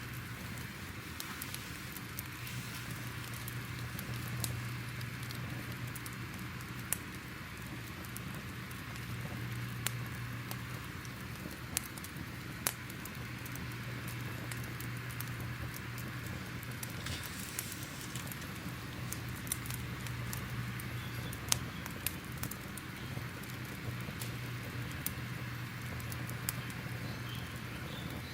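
Crackling fire ambience: a steady hiss with irregular sharp pops and crackles scattered throughout, over a steady low hum.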